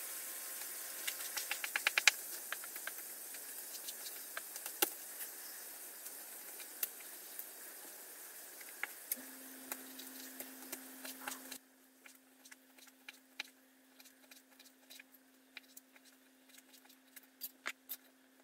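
Kitchen knife clicking and tapping on a plastic cutting board while raw chicken breast is sliced: a quick run of taps about two seconds in, then scattered single taps. A steady hiss underneath cuts off suddenly past the middle, leaving a faint low hum.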